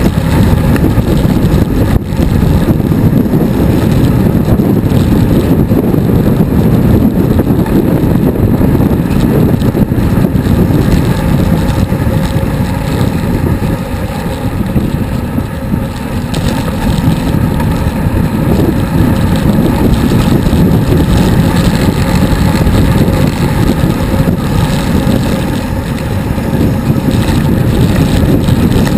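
Wind rushing over the microphone of a road bike riding downhill at speed: a loud, steady low rumble that eases a little about halfway through.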